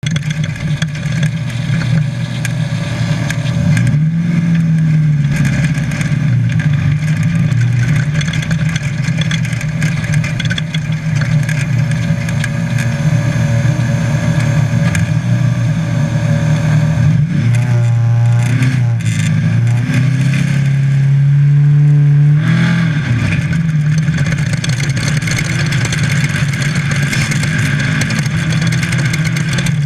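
Baja Bug desert race car's engine running hard from inside the car, a steady loud drone with rattling. About two-thirds of the way through, the revs drop and rise several times as the throttle comes off and back on.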